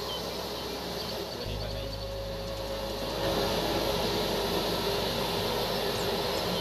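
Large aluminium wok of liquid bubbling hard on a stove while a ladle stirs it: a steady rushing, bubbling noise that grows a little louder about three seconds in.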